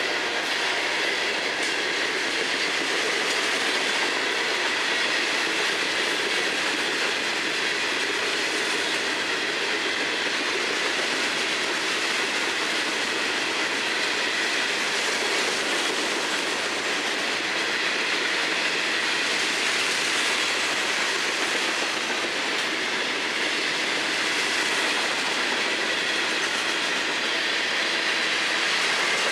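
Florida East Coast Railway freight cars rolling past at close range: a steady clatter of steel wheels on the rails.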